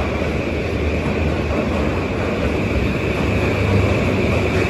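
JR East E235 series 1000 electric train moving past along a platform, with a steady rumble of wheels and running gear and a constant higher hiss.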